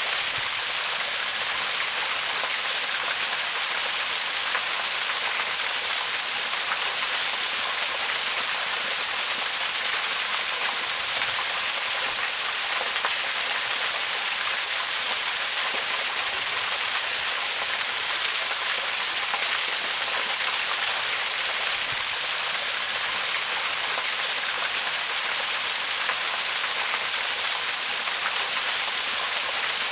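Waterfall: a steady, even rush of falling water, bright and hissy with little low rumble.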